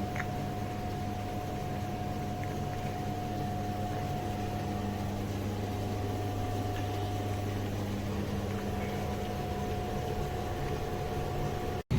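FOHERE 1200W compact vented tumble dryer running: a steady motor and drum hum with a thin constant whine over it.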